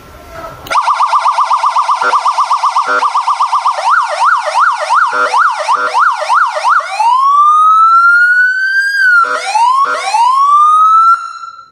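Senken YD50-27 motorcycle siren speaker, driven from its remote controller, stepping through its tones: a fast up-and-down warble, then slower up-and-down sweeps, then long rising sweeps, before it cuts off near the end.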